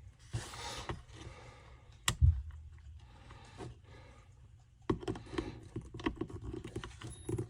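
Irregular clicks and rattles of small hard parts and tools being handled on a workbench, with one loud thump about two seconds in and a run of quick small clicks near the end.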